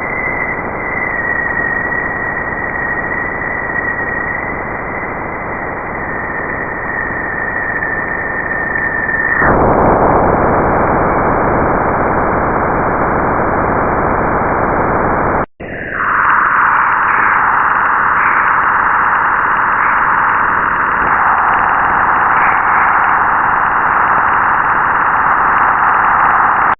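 Steady static-like hiss of a space recording presented as a planet's sound, with a thin steady whistle on top until about nine and a half seconds in, when the hiss changes. After a brief break near the middle, a new, narrower hiss begins and runs on.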